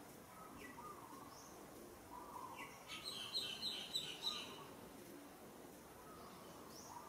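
Birds chirping and calling faintly, with a brief, louder run of quick high chirps about three to four seconds in.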